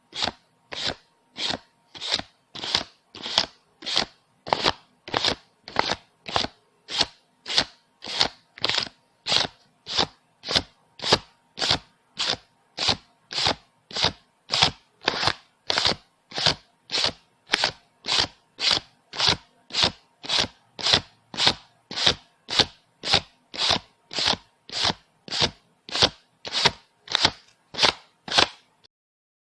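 Paper banknotes counted by hand, each bill flicked over with a crisp papery snap, about two a second at an even pace, pausing near the end.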